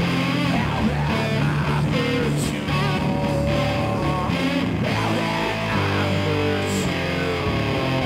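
Rock band playing live, with electric guitar to the fore over a steady low end.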